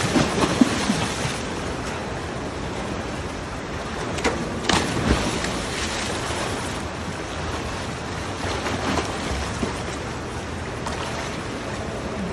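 Pool water splashing and churning as a swimmer kicks hard into the wall finish, heaviest in the first second or so, then a steady wash of choppy water with a sharper splash about five seconds in.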